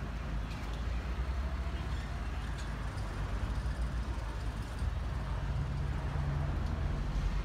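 A vehicle engine running steadily, a low pulsing rumble, with a steady hum joining in for a second or two past the middle.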